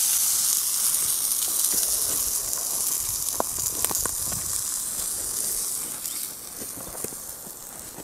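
Hare meat sizzling in a frying pan just taken off the coals. The hiss fades steadily toward the end as the pan moves away from the heat.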